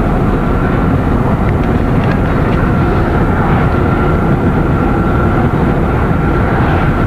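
Steady road and wind noise inside a moving car at highway speed, with a faint steady high whine throughout.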